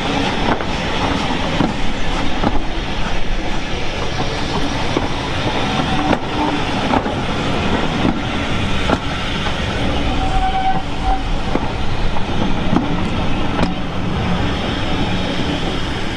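A train rolling along the track: a steady rumble with wheels clicking over the rail joints.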